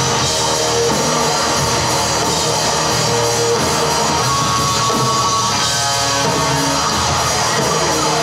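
Rock band playing live: electric guitar and drum kit in a loud, steady full-band sound.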